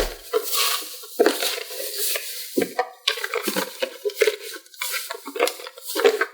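Plastic toy pieces being handled, with irregular clattering and scraping throughout.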